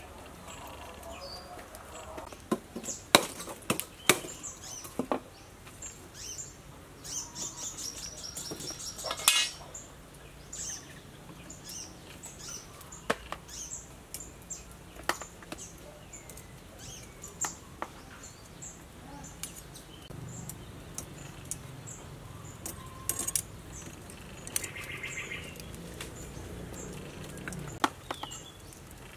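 Metal tongs clinking and knocking against a wire grill rack and a plastic bowl as marinated pork ribs are lifted out and laid on the grill, in scattered sharp clicks. Birds chirp faintly in the background.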